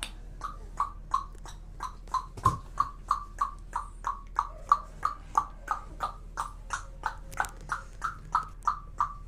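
A child making a steady run of tongue clicks, about three a second, each with a hollow popping ring. There is a single low thump about two and a half seconds in.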